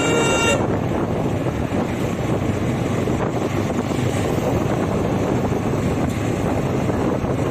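Motorcycle riding at steady speed: wind rushing over the bike-mounted microphone together with the running engine and road noise, a steady hiss and rumble. A short high-pitched beep sounds at the very start.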